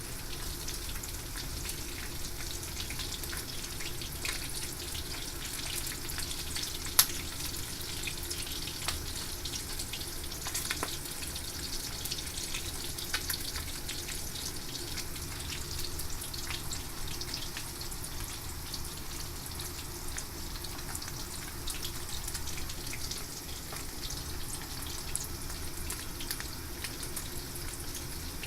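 Horse mackerel frying in hot oil: a steady sizzle with scattered crackles, and one sharp pop about seven seconds in.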